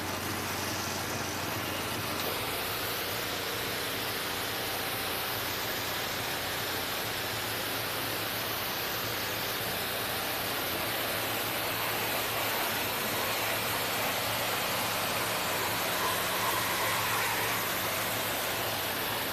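Pressure washer spraying a jet of water onto a pickup truck's engine bay: a steady hiss of spray, with an engine's steady low hum underneath.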